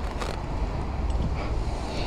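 Steady low rumble of street traffic, vehicle engines running nearby, with no sharp events.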